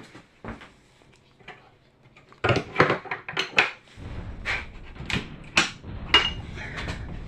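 Wooden ammunition crates being handled: a run of sharp clanks and knocks from their metal handles against the boxes, starting about two and a half seconds in, with a low rumble underneath from about four seconds in.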